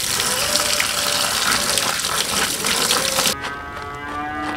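Tap water running hard into a plastic colander while hands rinse and rub chilies, shallots and tomatoes in it. It cuts off suddenly about three seconds in.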